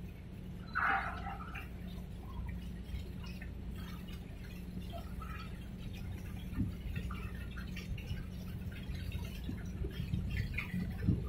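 Harbour water lapping and dripping against the waterfront over a steady low hum of ship and harbour machinery, with one short louder sound about a second in.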